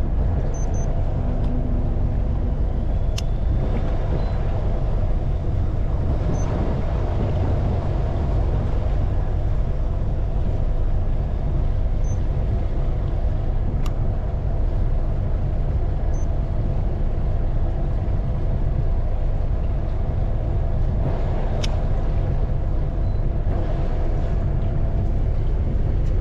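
Fishing boat's engine running steadily: a constant low rumble with a few faint sharp clicks.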